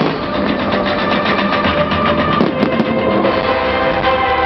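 Loud music with drums and sustained chords, the drums beating in a quick, even run during the first second and a half.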